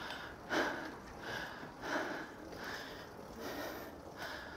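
A cyclist breathing hard and fast while pedalling uphill, a loud breath about every two-thirds of a second over a steady background hiss. The breathing is the strain of a long, steep climb, with the rider's heart rate around 165.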